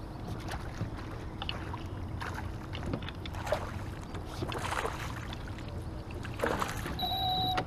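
A hooked pike splashing at the surface beside a boat while it is brought to the landing net, the splashes coming in a cluster in the middle and once more later. A short steady electronic beep sounds near the end.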